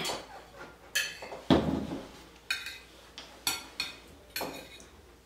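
Eating utensil knocking and clinking against dishes of food, about seven sharp knocks spaced through the few seconds, the loudest about one and a half seconds in.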